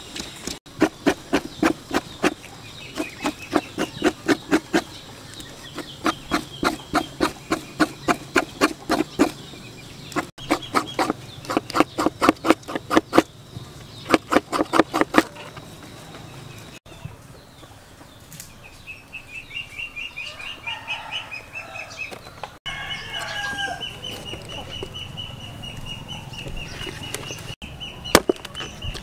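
A knife blade scraping the hair off a raw oxtail in fast, rhythmic strokes, about four a second, in runs of a few seconds. The scraping stops about halfway through, and birds call in the second half.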